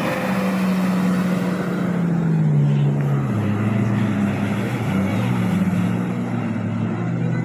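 Jet ski engine running at speed across the river; its pitch slides down clearly about three seconds in as the craft moves away.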